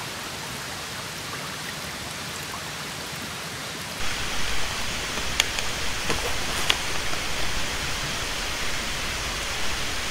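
Shallow stream running over stones, a steady rushing and babbling of water that grows louder about four seconds in. A couple of light clicks come shortly after.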